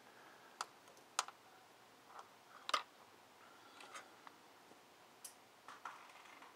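A handful of light clicks and taps, scattered irregularly, from small tools or parts being handled, the loudest nearly three seconds in.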